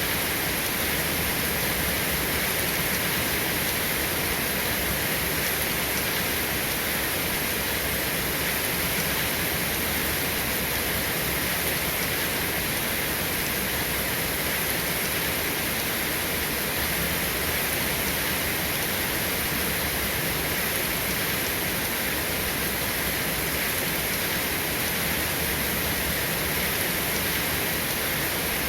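Steady rain, an even unbroken hiss with no thunder and no single drops standing out.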